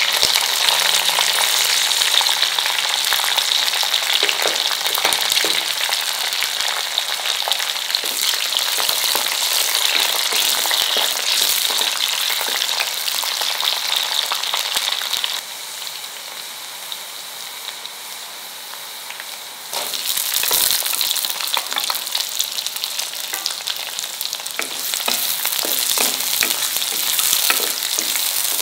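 Hot oil sizzling and crackling as green chillies, curry leaves and garlic fry in a pot, with a wooden spatula stirring. A little past the middle the sizzle drops quieter for about four seconds, then comes back strong with a single thump.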